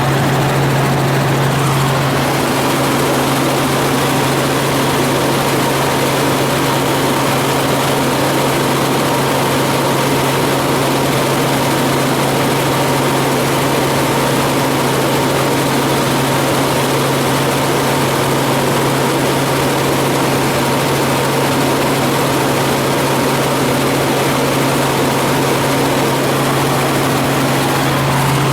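Helicopter in flight, heard from inside the cabin: a loud, steady drone of rotor and engine, with a strong low hum under a wide rushing noise and a faint higher whine.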